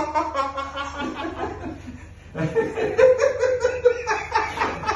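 A man laughing uncontrollably in quick chuckling bursts, pausing briefly a little after two seconds in, then breaking into laughter again. This is a hysterical laughing fit set off during chiropractic treatment.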